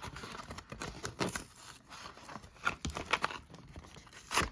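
Die-cast toy car's plastic blister package and cardboard backing being torn open and handled: irregular crinkling and crackling with scattered sharp clicks, the loudest crackle near the end.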